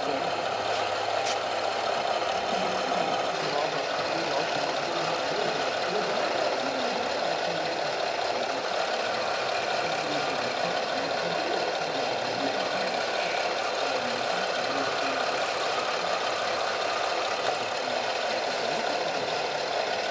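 Steady engine-like running from radio-controlled scale model vehicles, with crowd chatter underneath.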